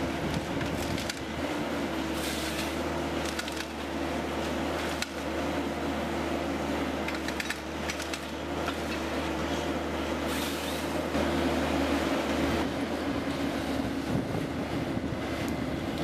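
Forestry harvester's diesel engine and hydraulics running steadily under load, with a steady hum, as the harvester head works a tree; scattered sharp cracks of branches and wood snapping throughout.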